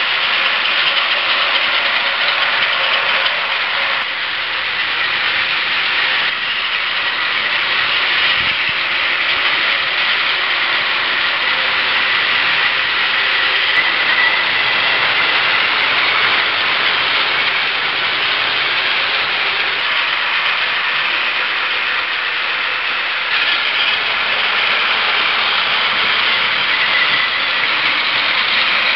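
Several battery-powered Plarail toy bullet trains running on plastic track: a steady, high whirring of their small motors and gears.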